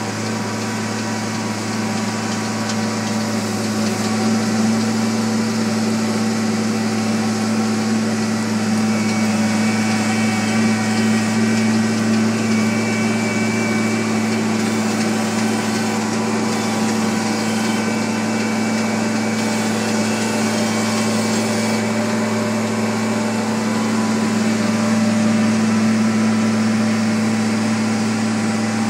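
Engine of asphalt paving equipment running steadily: a constant, even drone with a low hum that doesn't change pitch.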